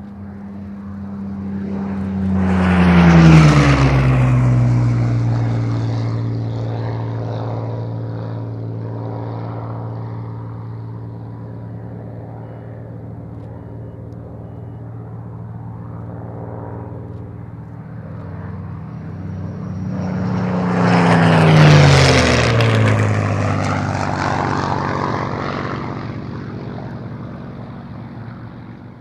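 A Supermarine Spitfire's Rolls-Royce Merlin V12 passes low and fast about three seconds in, its engine note dropping sharply in pitch as it goes by. A second Merlin-engined fighter makes a similar fast pass about twenty-one seconds in, and the engine drone carries on more faintly between the two passes.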